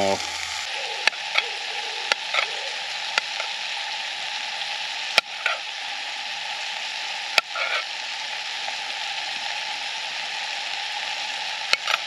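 Potatoes frying in oil in a small pan over a wood fire, a steady sizzle. A Scandi-ground knife clicks sharply against a metal plate a few times as potatoes are cut on it.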